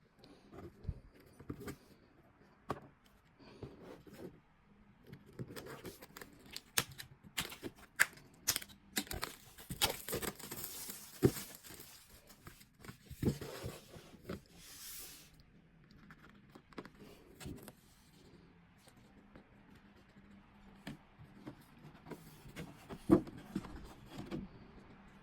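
Hands unwrapping and handling a boxed posterbook: irregular crinkling, rustling and tearing of wrapping, with scattered taps and clicks. A longer stretch of tearing and crinkling comes about ten seconds in and again a few seconds later.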